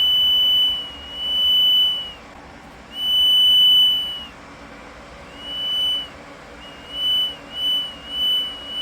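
Homemade proximity-sensor circuit's buzzer sounding one steady high tone that swells in and fades out repeatedly as a hand moves toward and away from the sensor, about seven times, from a two-second stretch down to short beeps near the end. The nearer the hand, the louder the tone.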